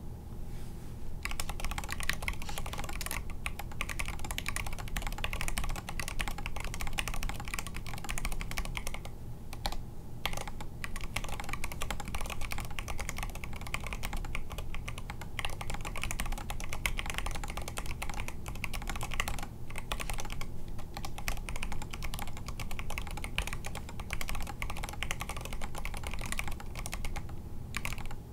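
Continuous typing on a foam-lined Mechboards Hyper 7 R3 mechanical keyboard with NK Silk Red linear switches and KAT Space Cadet keycaps: a rapid run of key clacks that starts about a second in, with a few short pauses.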